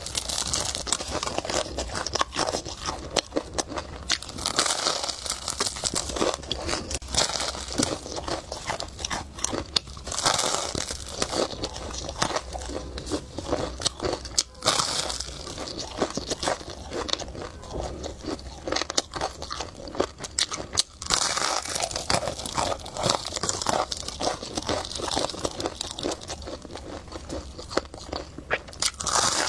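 Close-miked eating sounds: a person chewing and biting, with a steady run of quick wet mouth clicks.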